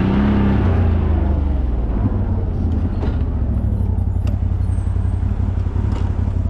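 CFMoto CF 1000's V-twin engine running at low speed, its higher note falling away about a second in as it settles to a steady low drone.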